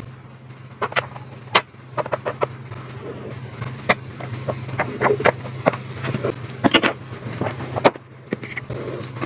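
Miniature plastic toy food packages being handled and set down, giving many light, irregular clicks and taps, with a steady low hum underneath.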